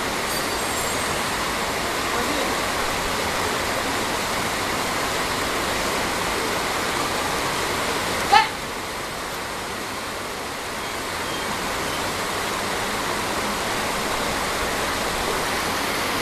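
Steady rush of a shallow river flowing over rocks. About halfway through, one short, loud, high-pitched call cuts through.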